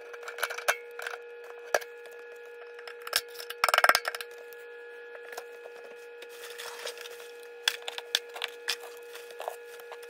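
Hands handling the white plastic drain pipes and fittings under a kitchen sink: scattered clicks and knocks, with a loud clatter a little under four seconds in. A steady high-pitched hum runs underneath.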